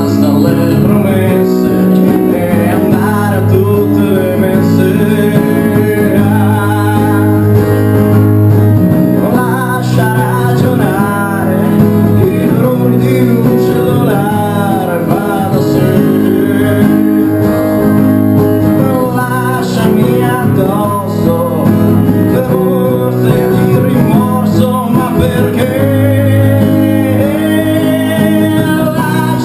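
Acoustic guitar played with a voice singing over it: a live solo song.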